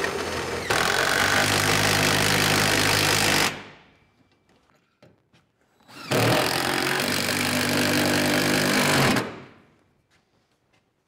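Power driver driving screws to fasten a lumber rack bracket to the wall, in two runs of about three seconds each. The first gets louder about a second in; both wind down and stop.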